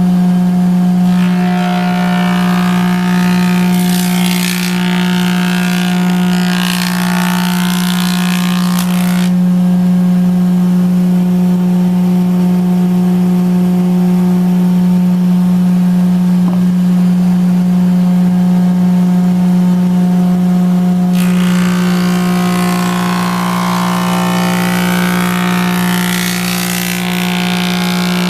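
1915 Porter jointer running with a steady hum, while boards are fed across its cutterhead twice. Each pass brings a long stretch of loud planing noise: about a second in for some eight seconds, then again from about three-quarters of the way through.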